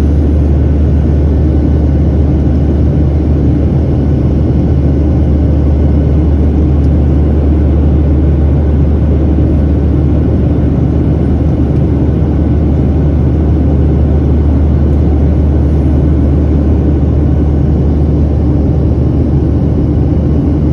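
Airplane engines droning steadily and loudly, a constant low rumble with no change in pitch.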